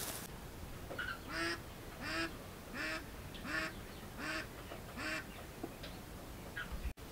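A bird calling six times in an even series, about one short call every 0.7 seconds, starting about a second and a half in.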